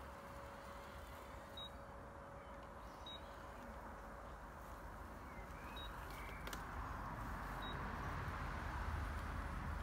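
Worx Landroid robotic lawn mower running across grass: a faint, steady motor whir with a thin hum, growing louder over the second half.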